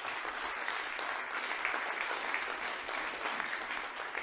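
Audience applauding steadily in a hall, many hands clapping at once, thinning out just after the end.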